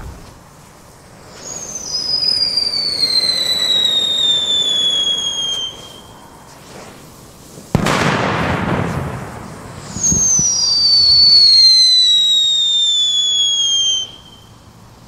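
Screaming Eagle whistle bangers going off one after another. A whistle falls steadily in pitch for about four seconds and cuts off, and a couple of seconds later a single sharp bang rings out with a decaying echo. A second falling whistle follows near the end.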